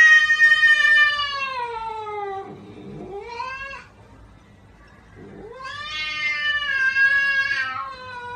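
Domestic cat yowling in long drawn-out cries: the first falls slowly in pitch and trails off about four seconds in, and after a pause of about a second a second long yowl rises and holds to the end.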